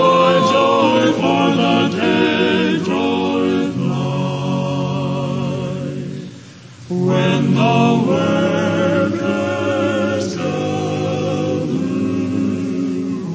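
Vocal quartet singing a hymn in four-part harmony. The singing breaks off briefly about six seconds in, then comes back for the next phrase.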